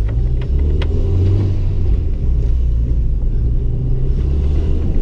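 Honda Integra Type R's four-cylinder engine and road rumble heard inside the cabin while driving, a steady low drone that rises and falls a little. A couple of sharp clicks about half a second and a second in.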